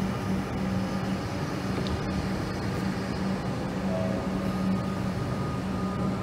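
Metro electric suburban train moving slowly along the platform, with a steady electric hum under even running noise.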